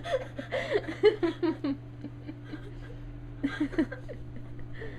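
A person laughing in a run of short voiced pulses for the first couple of seconds, then a brief second burst of laughter about three and a half seconds in.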